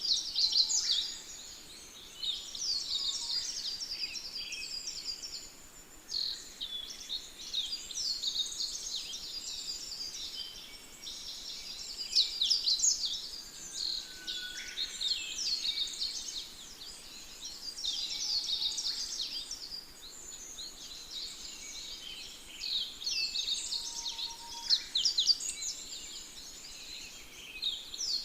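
A dense chorus of many small birds chirping and twittering, high-pitched, rising and falling in swells every few seconds, with an occasional lower whistle.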